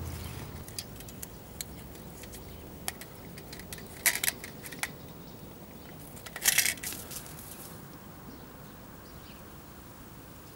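Metal clicks and rattles from a wire-mesh live-catch mouse trap being handled and set: a quick cluster of clinks about four seconds in and another, louder one about six and a half seconds in.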